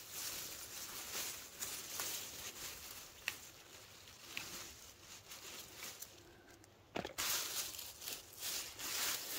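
Rustling of leafy vines and handling noise with a few light clicks and snaps as the foliage is pushed through while picking. A brief lull comes about six seconds in, then a sharp snap and louder rustling.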